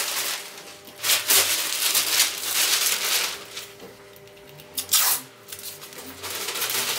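Large sheet of masking paper rustling and crackling as it is pulled and spread over the bodywork by hand. It comes in bursts: a long stretch in the first half, a short one about five seconds in, and more near the end.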